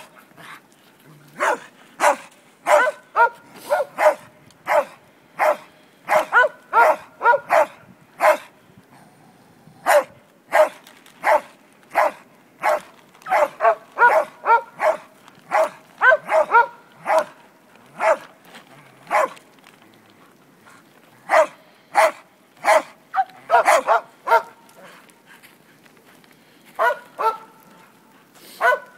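A large dog barking repeatedly in quick clusters of two to four sharp barks, with a few pauses of a second or two between runs.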